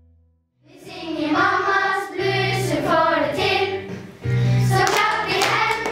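Children's choir singing with instrumental backing, starting about a second in after a brief moment of quiet.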